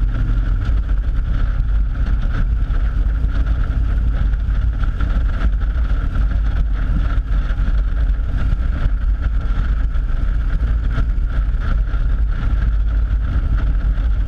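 Cruiser motorcycle riding at a steady speed, heard from a camera mounted on its handlebars: a loud, steady rush of wind buffeting and road noise over the engine.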